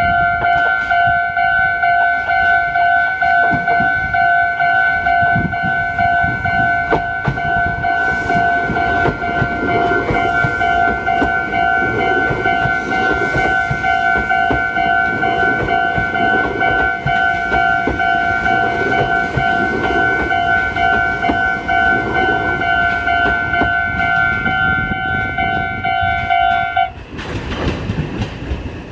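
A Japanese level-crossing warning bell rings steadily with a two-pitch electronic tone, then cuts off abruptly near the end. Under it, the Meitetsu Blue μSKY train rolls slowly through the crossing, its wheels clicking over the rail joints.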